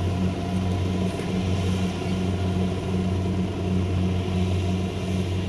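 Kubota combine harvester's diesel engine running steadily, a low even hum.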